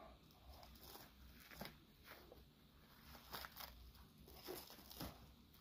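Plastic bubble wrap being peeled off a freshly set transparent soap bar: faint, scattered crinkles and crackles.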